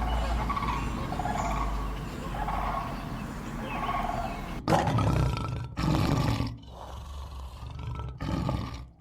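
Dogs and puppies vocalising in several spliced clips: a run of repeated short, pulsing calls for the first half, then, after a sudden cut, three louder and lower bursts.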